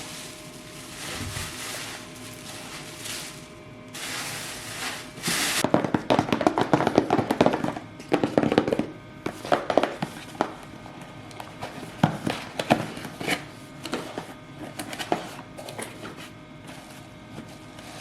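Indoor handling noises: a few seconds of hissing rustle, then a busy run of clicks and light knocks that thins out to scattered taps.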